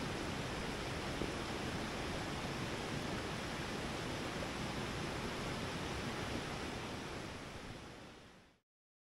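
Steady rushing of a rocky mountain stream tumbling over stones, fading out smoothly near the end into silence.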